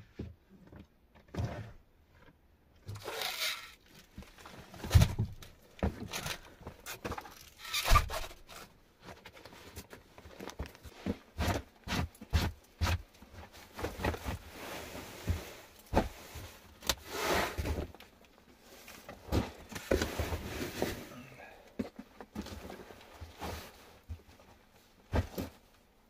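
Someone moving about inside a small log-and-earth dugout: footsteps, knocks, and the rustle of cloth and gear being handled, with two louder thumps about five and eight seconds in.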